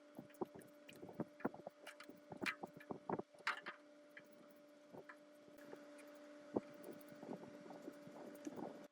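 Irregular clicks and knocks of tools and parts being handled during restoration work, over a steady two-tone hum. The knocks come thickest in the first few seconds, and the sound cuts off abruptly near the end.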